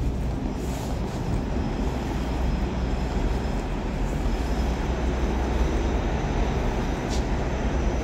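New York City subway train running through the station, a steady low rumble that grows slightly louder, with a faint high whine partway through.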